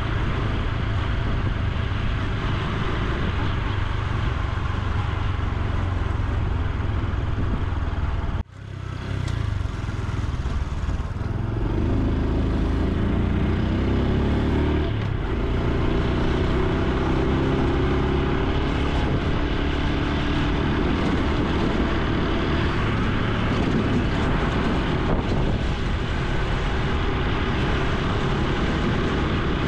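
Honda Super Cub C125's single-cylinder four-stroke engine and exhaust while riding, over a steady rush of noise. The sound cuts out abruptly about eight seconds in and swells back over the next two seconds, then the engine note climbs in pitch in a few steps as the bike speeds up.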